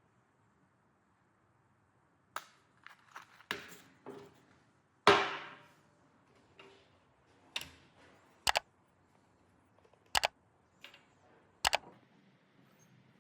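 Steel springs being handled: a run of sharp metallic clicks and knocks, the loudest about five seconds in with a short ring, then three crisp double clicks spaced a second or two apart.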